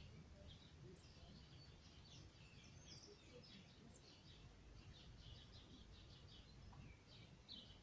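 Faint, busy birdsong of many short chirps over a low steady background rumble; otherwise near quiet.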